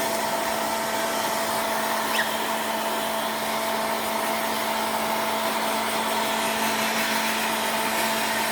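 Handheld hair dryer running steadily, a loud even whoosh of air with a constant motor hum, drying a kitten after its bath.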